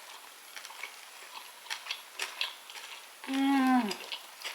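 Small wet clicks of chewing and mouth sounds while eating a baked scallop. About three seconds in comes a single hummed "mmm" of enjoyment that falls in pitch, the loudest sound here.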